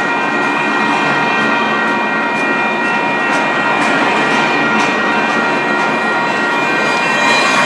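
Empty double-stack intermodal well cars rolling past close by: a steady rumble of steel wheels on rail with high, steady ringing tones over it. Light clicks come about once a second in the middle stretch.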